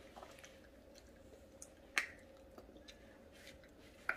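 Children eating chocolate: a few faint, sharp mouth clicks and smacks, the clearest about two seconds in and another just before the end.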